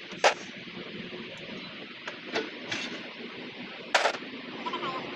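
A few short, sharp bangs over a steady background noise, the loudest about four seconds in.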